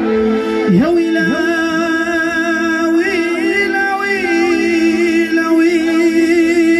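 A man singing a Tunisian wedding song into a microphone, holding long wavering notes, over a steady held instrumental accompaniment.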